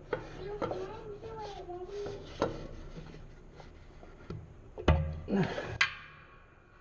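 Scattered sharp clicks and knocks of metal hand tools at work, with a heavy thump about five seconds in. A faint wavering voice-like tone runs through the first two seconds.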